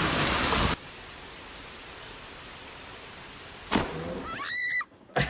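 Storm footage: heavy rain or hail pounding hard surfaces, then an abrupt cut to a much softer steady hiss. A sharp knock comes near 3.7 s, followed by a brief rising squeal, and the loud downpour returns just before the end.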